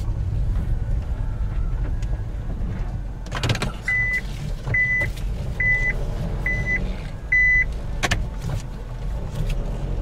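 Steady low engine and road rumble inside the cabin of a Honda Life JB5 kei car. A sharp click comes about three and a half seconds in, then five short high beeps at a little under one a second from the car's reverse warning buzzer as it backs up, and another click a couple of seconds before the end.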